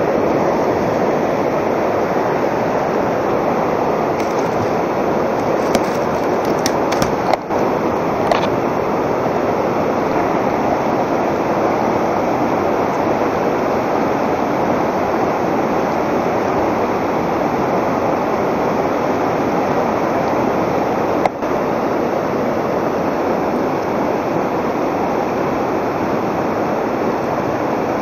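Steady rush of a fast mountain river pouring over rocks in shallow rapids. A few brief clicks fall in the first third and one more later.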